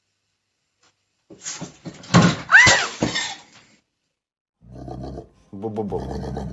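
An animal's calls: a loud, rough cry that rises and falls in pitch about two seconds in, then lower, drawn-out calls near the end.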